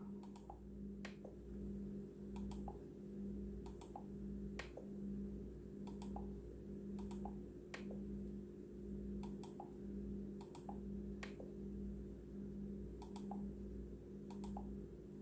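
Faint, irregular clicks and taps from a finger working a JR radio-control transmitter's touchscreen and back key, a dozen or so over the stretch, over a faint low hum that pulses evenly.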